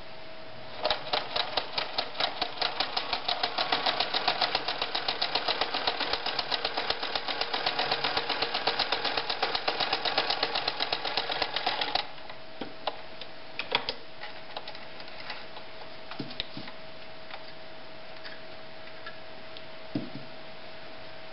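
White model 1077 "Jeans Machine" sewing machine stitching zigzag through eight layers of denim: a fast, even run of needle strokes that picks up speed over the first second or two and stops abruptly about twelve seconds in. A few scattered clicks and knocks follow.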